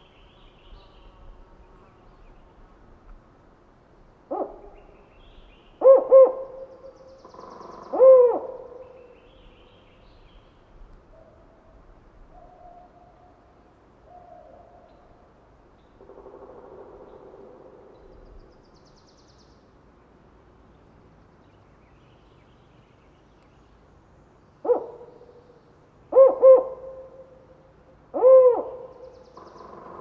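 Spotted owl giving its four-note hooting call twice: a single hoot, a quick pair, then a longer, drawn-out last note. The series repeats about twenty seconds after the first. It is the call that declares territory.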